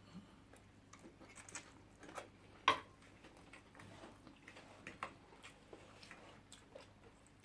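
Faint eating sounds: scattered small clicks and mouth noises of chewing, with one sharper click a little under three seconds in.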